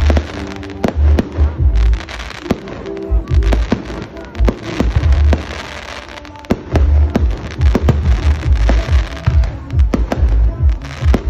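A fireworks display going off, with many sharp bangs and crackles coming in quick succession from ground fountains and aerial shells, over music with a deep bass.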